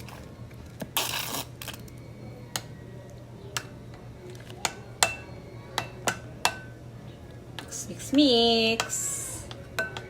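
A spoon or spatula clinking against a mixing bowl while cream and condensed milk are added and mixed. The clinks are sharp and come irregularly, with a short scraping or pouring rush about a second in.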